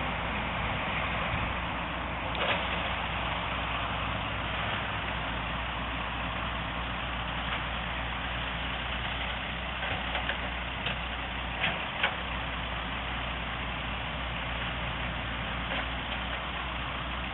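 Diesel engines of heavy construction equipment running steadily at a work site, with a few short sharp knocks, mostly around the middle.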